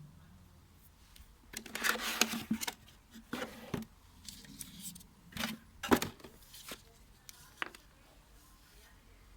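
Unboxing handling: a burst of packaging rustling, then several separate clicks and knocks as parts are picked up and set down.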